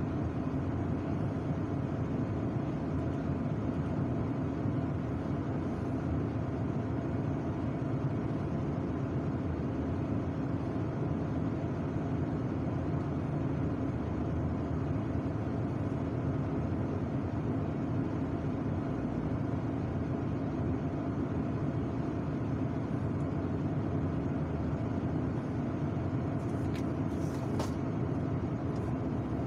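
Heavy diesel engine running steadily, a constant drone heard from inside a truck cab. A few faint, short high-pitched sounds come near the end.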